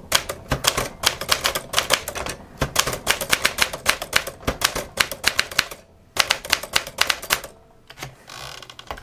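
Smith-Corona Silent-Super manual typewriter being typed on at a quick pace: a rapid run of typebar strikes against the platen, with a few short pauses. Near the end comes a softer run of fine clicks as the platen knob is turned to roll the card up.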